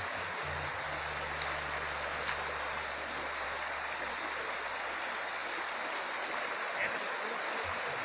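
Shallow river flowing steadily: an even rush of running water, with a faint low hum through most of it.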